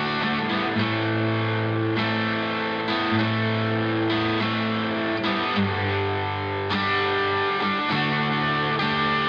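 Instrumental background music led by guitar, held chords changing every second or two over a moving bass line.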